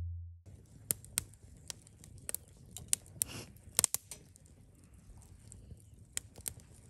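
Irregular sharp clicks and small crackles, about a dozen of them, bunched in the first four seconds and again near the end, over a quiet background.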